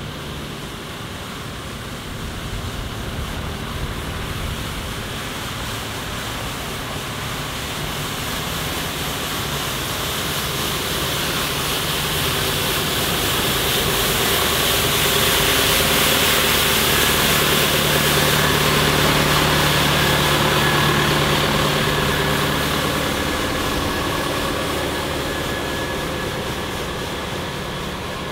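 John Deere 6230 tractor's diesel engine running as it drives past, with its front-mounted rotary brush sweeping gravel and grit off the road surface. The sound grows steadily louder toward the middle and fades as the tractor moves away.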